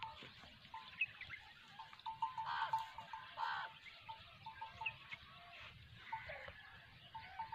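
Livestock bleating twice, about two and a half and three and a half seconds in, among short, repeated high peeps.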